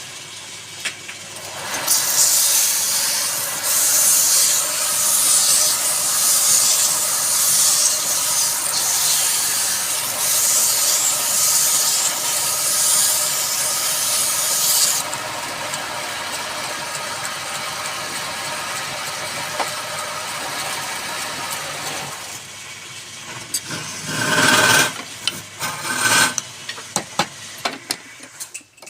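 A woodworking machine cutting wood: a loud, hissing, rasping noise for about thirteen seconds, then the machine running more quietly, with a few short loud bursts near the end.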